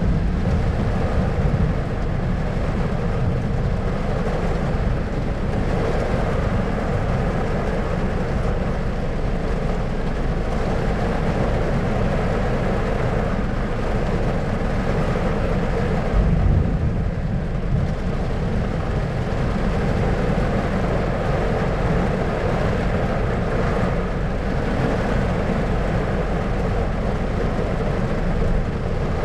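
Thunderstorm ambience: steady rain noise over a low rumble, with a louder low rumble of thunder about 16 seconds in.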